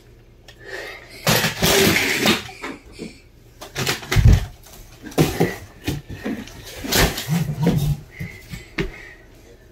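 Scuffling and rustling of people moving about close to the microphone, with scattered knocks and a heavy thump about four seconds in.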